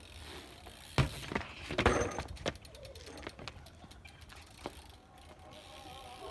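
A BMX bike on paving stones: a sharp knock about a second in, a cluster of louder knocks and rattles near two seconds, then lighter scattered clicks.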